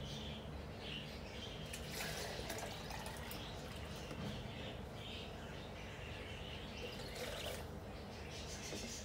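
Ambient background: a steady low hum with faint scattered high chirps and two brief hissy noise bursts, about two seconds in and near the end.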